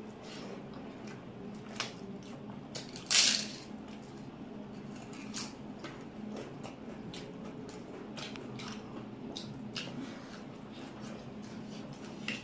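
Close-up eating sounds of egg curry: wet squishing and smacking with many scattered small clicks, and one louder, noisier burst about three seconds in, over a steady low hum.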